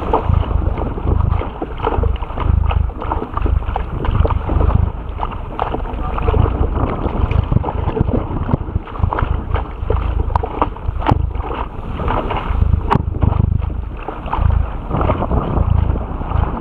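Water rushing and splashing against a Topper Topaz dinghy's bow as it sails through chop, with spray striking the camera in sharp ticks. Heavy wind buffeting on the microphone rises and falls throughout.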